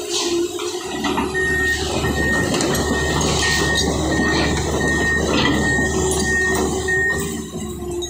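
Backhoe's diesel engine running hard with its hydraulics working as it moves, and a high warning beep repeating about every half second from about a second in until near the end. A few knocks stand out over the engine.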